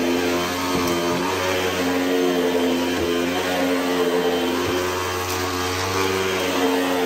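Hoover WindTunnel upright vacuum cleaner running on carpet: a loud, steady motor drone with several held tones over a rushing of air, the pitch wavering slightly as it is pushed back and forth.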